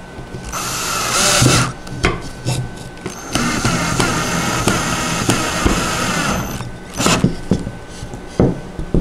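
Cordless drill driving a screw through a wooden armrest into a doll high chair seat: a short run of about a second, then a longer steady run of about three seconds as the screw goes home. A few knocks from handling the drill and parts near the end.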